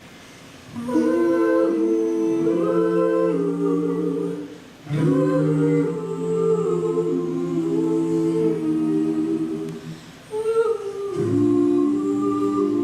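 A cappella vocal group humming sustained wordless chords in close harmony, in three phrases with brief breaths between them.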